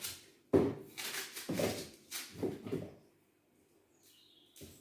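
An onion being cut with a knife, the pieces dropping into a blender jar: a run of short knocks and scrapes, about two a second, that stops about three seconds in.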